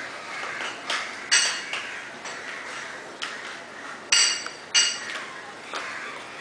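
Sharp clinks with a short ringing tail, like dishes or metal knocked together: two about a second in and two more after four seconds, over a steady hiss.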